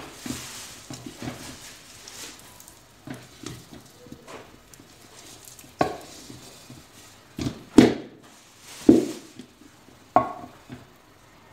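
A wooden spoon stirring sticky date paste in a stainless steel bowl, scraping and knocking against the metal in an irregular run of knocks, the loudest in the second half.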